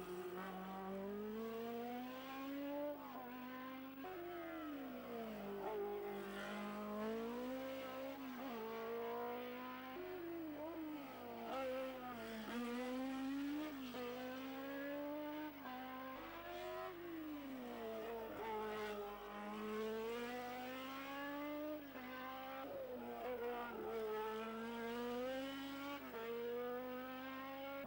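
Single-seater racing car engine at full throttle on a hill climb, its revs climbing and dropping sharply at each gear change. It eases off into bends and picks up again, over and over.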